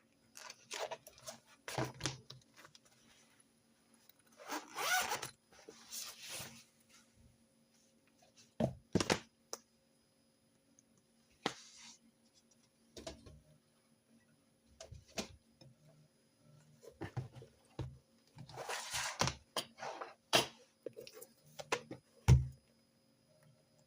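Close-up handling of stationery and paper on a desk: several rasping strokes about a second long, like a zip or paper sliding, scattered among sharp clicks and light knocks from objects being set down and picked up.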